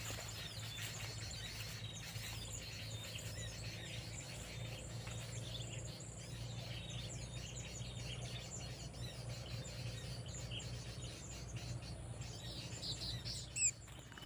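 Small birds chirping and twittering throughout, many short calls over a faint steady low hum, with one louder brief sound near the end.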